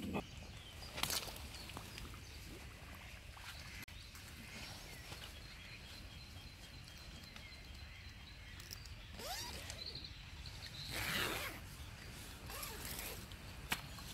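Brief rustling and scraping handling noises, twice, the louder one near the end, over a quiet outdoor background.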